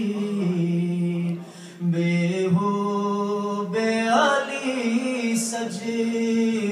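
A man singing an Urdu manqabat unaccompanied, drawing out long held notes. He breaks briefly for breath about a second and a half in, and the melody turns upward about four seconds in.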